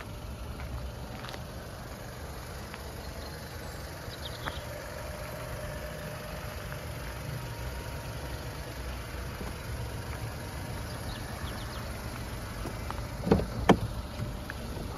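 Volkswagen Polo's engine idling with a steady low rumble. Two sharp clicks, a moment apart, near the end.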